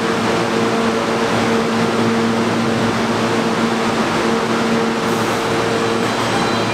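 A New York City Subway train standing at an underground platform, humming steadily: an even hiss with a constant low drone.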